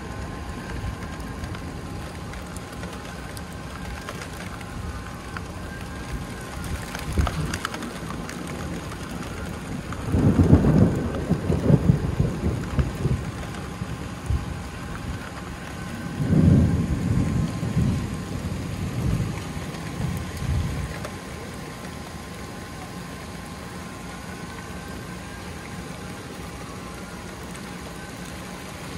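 Thunderstorm: steady rain with two loud rolls of thunder, the first about a third of the way in, the second a few seconds later, each rumbling for several seconds before fading back to the rain.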